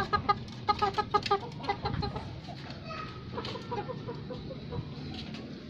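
Young Bangkok game chickens clucking in a cage, a quick run of short clucks several a second over the first two seconds, then sparser and fainter clucks.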